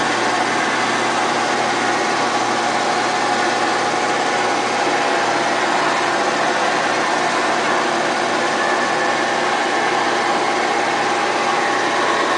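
24-inch Kindt-Collins Master Model C disc sander running steadily, a constant machine hum and whine with a few steady tones and no change in speed.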